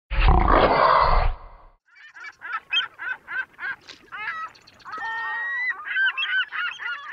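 A loud rushing noise for about a second and a half, then a quick run of bird calls, each note bending in pitch, with one longer held note about halfway through. This is a sound logo over an end card.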